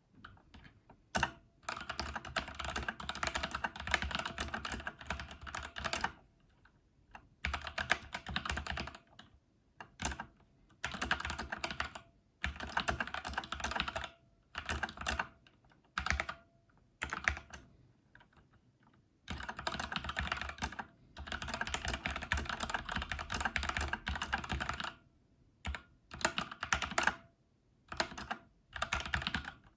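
Typing on an Xtrfy K4 RGB TKL tenkeyless mechanical keyboard: bursts of rapid keystrokes, each lasting one to three seconds, separated by brief pauses.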